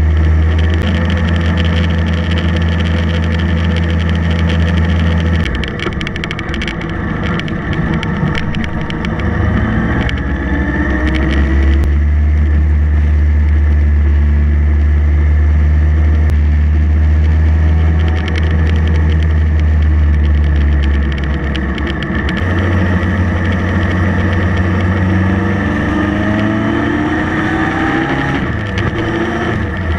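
Motorcycle engine running at road speed, heard from the bike itself, with wind and road noise. The engine note changes a few times as the throttle is eased and opened, and rises as the bike speeds up about a third of the way in and again near the end.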